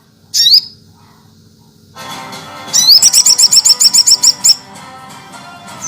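A sogok ontong, a spiderhunter, singing: a short rising high call, then, after a pause, a fast run of bright repeated notes, about eight a second, lasting nearly two seconds. A steady music bed plays underneath from about two seconds in.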